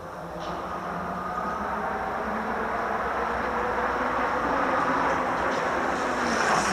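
A 500 W 48 V EGO Seagull electric bike being ridden: steady rolling noise with a faint hum, swelling gradually and loudest near the end.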